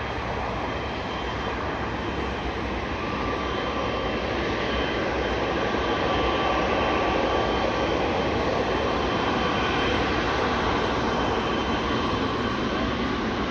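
Jet airliner engines running: a steady rushing noise with a faint high whine, growing a little louder over the first few seconds and then holding steady.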